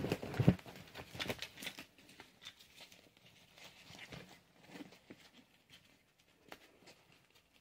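Pedimate infant harness being handled: nylon straps rustling and plastic buckle fittings clicking as the straps are adjusted. The clicks are scattered, loudest in the first second or two, then faint.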